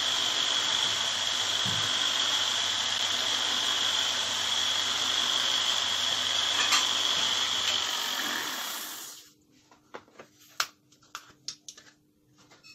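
Simple motor-driven knife-sharpening machine running as a blade is ground on it: a steady grinding hiss with a constant high whine. It dies away about nine seconds in, leaving a few light clicks and knocks.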